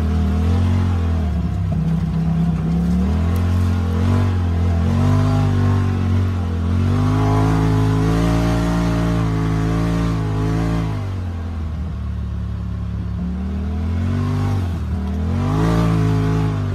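Polaris RZR Pro XP's turbocharged twin-cylinder engine under throttle, revving up and easing off several times, with a long steady pull in the middle and a lower stretch after it.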